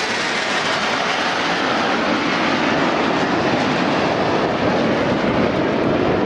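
Aermacchi MB-339 PAN jet trainers flying past in formation, their Rolls-Royce Viper turbojets making a steady jet noise whose low rumble grows stronger after about two seconds.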